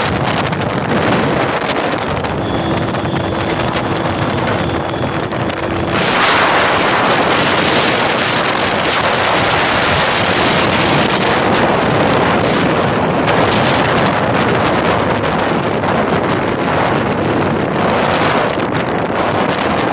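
Wind buffeting the microphone of a moving motorcycle, over the motorcycle's engine and road noise. The wind noise gets louder and harsher about six seconds in.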